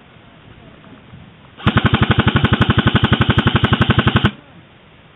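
An airsoft gun firing one long full-auto burst of about two and a half seconds, a rapid even rattle of about a dozen shots a second. It starts and stops abruptly, loud and close to the microphone.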